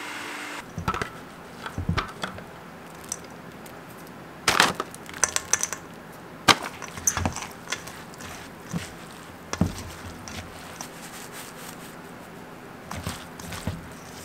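A food processor motor stops within the first second. Then a silicone spatula stirs a chunky granola mixture of chopped nuts, dried fruit and processed peach in a stainless steel bowl, with irregular scraping and knocks against the metal, the loudest about four and a half and six and a half seconds in.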